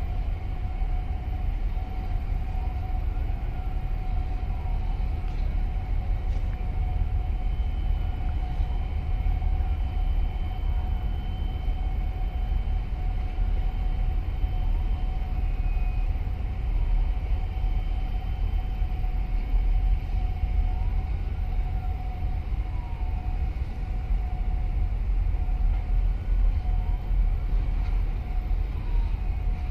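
A boat's engine running steadily: a deep rumble with a steady mid-pitched whine above it.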